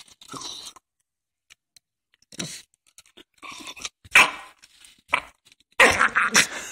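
Jack Russell Terrier making a strange noise: a series of short, irregular noisy sounds with pauses between, the loudest about four seconds in and a close run of them near the end.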